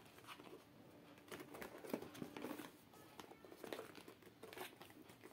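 Faint rustling, scraping and small clicks of a cardboard box being gripped and pushed as its tight inner tray is forced to slide out.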